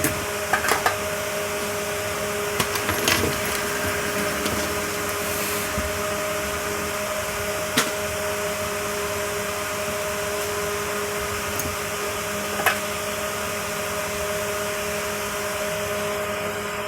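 A small motor or blower running steadily with a whirring hiss and a low two-note hum, with a few light clicks.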